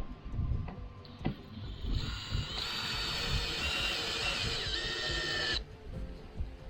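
A power drill running for about three and a half seconds, its motor whine stepping down in pitch near the end before it stops sharply. Background music plays throughout.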